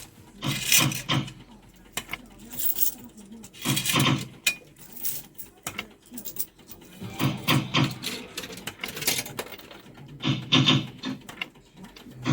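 Fruit machine being played: irregular bursts of clicks and mechanical reel noise as spins start and stop, several times over.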